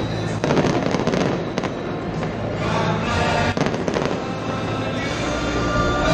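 Fireworks display: aerial shells bursting one after another, many bangs in quick succession.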